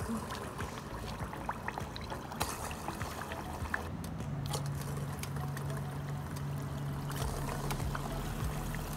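Potato-dough rings frying in hot oil in a steel pot: a steady sizzle full of small crackles, with a few sharper pops as pieces are dropped in. A steady low hum joins about halfway through.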